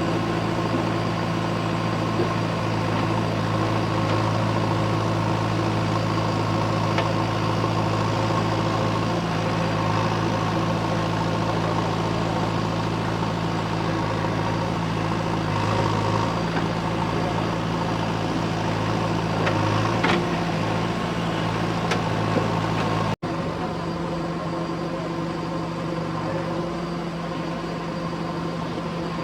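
JCB 3DX backhoe loader's diesel engine running steadily, with a few faint knocks. Near the end it cuts abruptly to a slightly quieter engine sound.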